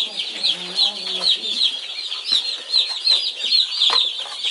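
A brood of about a hundred day-old meat chicks peeping continuously, a dense chorus of high-pitched, rapid cheeps.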